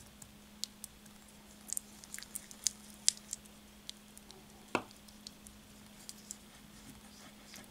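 Small whisk stirring thick clay face-mask paste in a glass bowl: irregular light clicks of the whisk against the glass with soft squishing, and one firmer knock a little past halfway. A faint steady low hum runs underneath.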